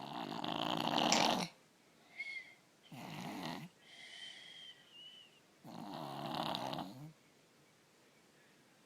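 A three-year-old child snoring in sleep, the snoring made worse by strep throat: three snores about three seconds apart, with a thin high whistle on the breaths between them, then a pause near the end.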